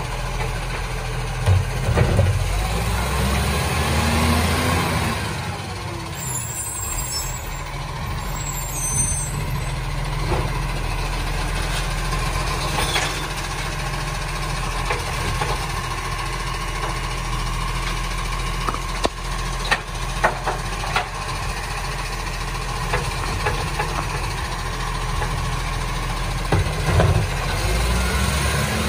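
Side-loader garbage truck's diesel engine running steadily while its automated arm tips a wheelie bin into the hopper and sets it back down. The engine revs up briefly a couple of seconds in, and several sharp clunks of bin and arm come near the start, again about two-thirds of the way in, and near the end.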